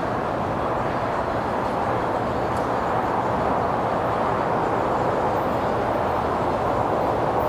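Steady rushing vehicle noise with no clear beat or tone, growing slightly louder toward the end.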